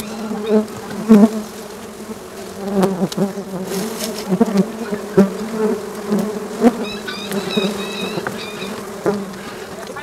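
Swarm of small honeybees buzzing steadily around their open comb as they are smoked and pushed aside with a gloved hand. Scattered clicks and rustles are heard through it.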